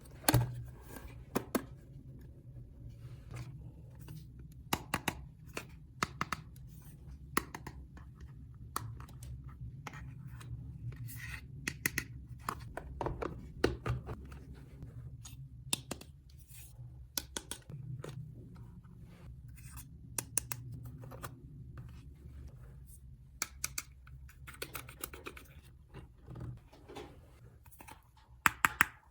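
Hands handling small toy pieces and their packaging: irregular sharp clicks, taps and scratching, with a steady low hum underneath.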